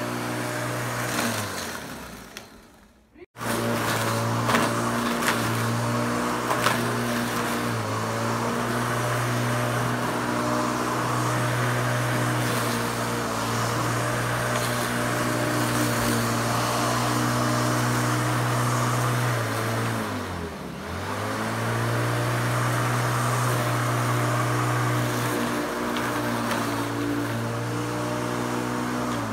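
Corded electric rotary lawnmower running and cutting grass with a steady motor hum. Near the start the motor winds down and cuts out, then runs again at full speed. About twenty seconds in, the motor slows briefly and picks back up.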